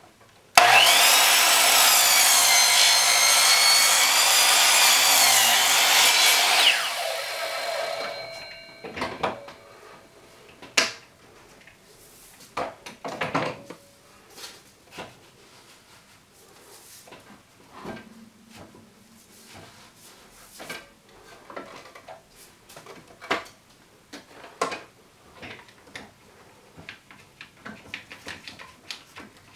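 Small power miter saw running for about six seconds, its whine wavering as the blade cuts into a thick roll of seamless paper, then switched off and winding down. Then scattered clicks and knocks as the bar clamps are released and reset and the paper roll is turned.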